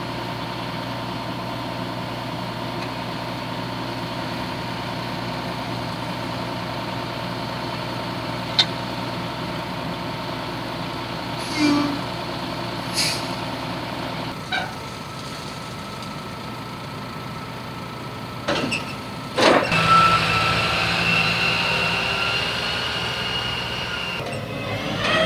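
Claas Lexion 480 combine harvester's engine running steadily at a standstill, with a few short clicks and hisses. In the second half a tractor pulling a loaded trailer runs on the road with a high whine over its engine, after a couple of loud knocks.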